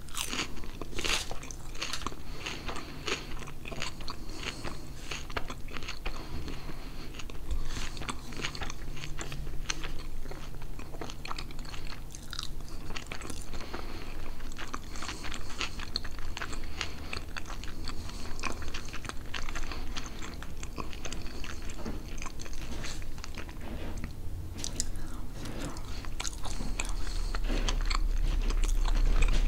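Close-miked chewing and biting as a person eats pernil with rice and beans: a continuous stream of small, sharp mouth clicks and wet chewing sounds, growing a little louder near the end.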